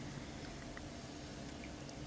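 Faint steady workshop background noise with a couple of light, small clicks from hand work on the machine.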